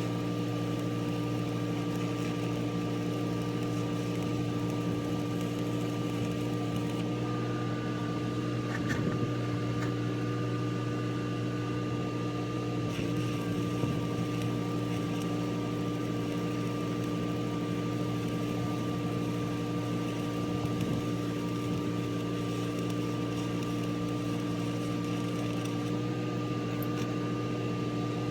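Truck-mounted engine-driven welder running at a steady speed, a constant hum.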